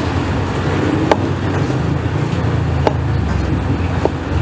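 A cleaver strikes a wooden chopping board three times, about one to two seconds apart, as it cuts slices of pork, over a steady low rumble of street traffic.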